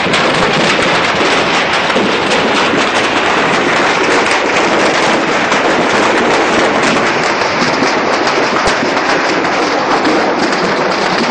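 Large scrap-yard fire burning fiercely: a loud, steady rush of flame thick with rapid crackling and popping.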